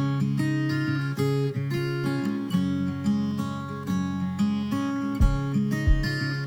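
Background music led by a strummed acoustic guitar, with a steady low beat coming in near the end.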